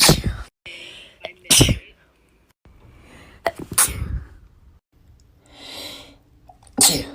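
Young women sneezing, one after another: four loud sneezes about two seconds apart, with abrupt cuts between them. The last sneeze follows a drawn-in breath.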